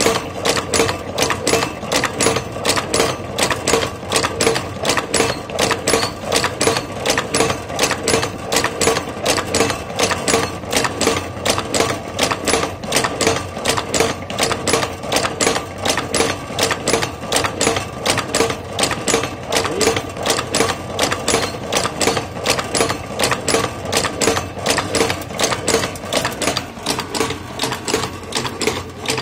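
Wire-forming ring-making machine running, its slides and tooling cycling in a fast, even mechanical clatter as it forms small wire rings.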